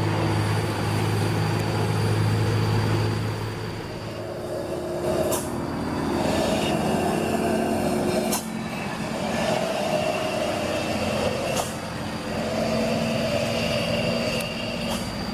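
Small electric motors of a radio-controlled model excavator running. A steady low hum for about four seconds gives way to spells of whining, each about two seconds long, that start and stop as the controls are worked. A few sharp clicks fall between them.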